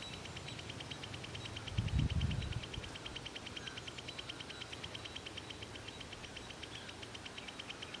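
Plain prinia singing a rapid, even series of ticking notes, about ten a second. A brief low rumble about two seconds in.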